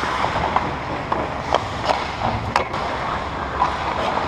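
Ice hockey play: skate blades scraping and carving on the ice, with scattered clacks of sticks and puck, the sharpest about two and a half seconds in.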